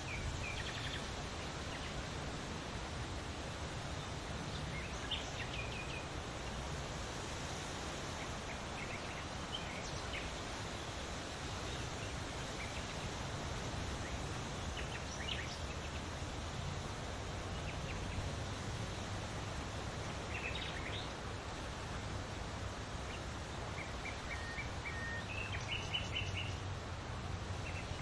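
Wind rustling leaves in a steady hiss with a low rumble, while small birds give short, scattered chirps every few seconds and a quick run of chirps near the end.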